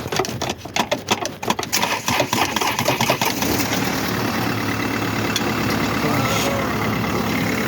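Mercedes-Benz engine cranking over in quick knocks and catching about three seconds in, then settling into a steady idle. It starts only once its starter motor has been tapped with a crowbar, the starter being faulty, with corroded contacts that make poor contact.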